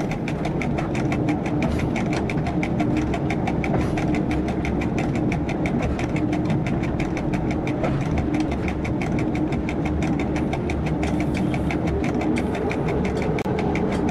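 Diesel train engine running, heard from the driver's cab as the train travels, with a fast even ticking, about five a second, over the steady engine noise.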